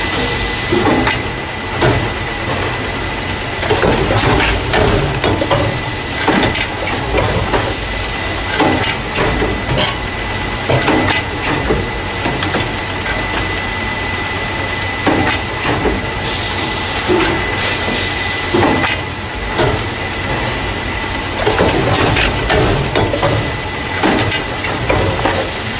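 Carton caser machine running, packing paper juice and milk cartons into plastic crates: continuous clattering and knocking with a steady high whine. A hiss comes back about every eight seconds.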